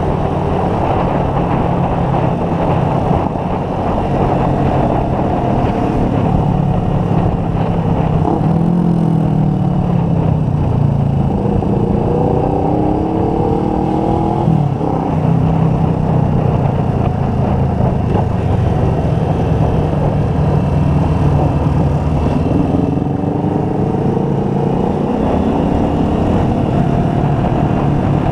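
Motorcycle engine running under way, with wind rushing over the microphone. Around the middle the revs climb in a few rising glides, then drop sharply at a gear change and settle back to a steady cruise.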